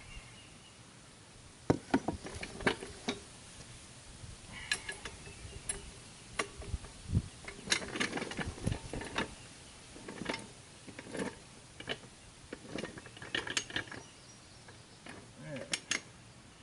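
Irregular knocks and clicks, some with a brief metallic ring, as a jack and wooden boards are handled and set in place under a motorcycle.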